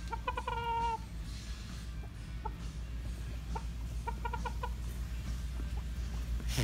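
Rooster clucking: a quick run of clucks ending in a drawn-out note about a second in, then another quick run of clucks about four seconds in, over a steady low rumble.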